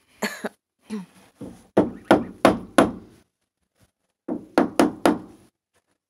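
Hammer blows on a wooden frame: a quick run of about eight strikes, a pause of just over a second, then four more.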